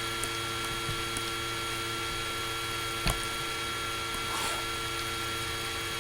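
Laptop cooling fan running steadily, heard through the laptop's own microphone as a hum with several steady whining tones over a hiss. A single click sounds about three seconds in.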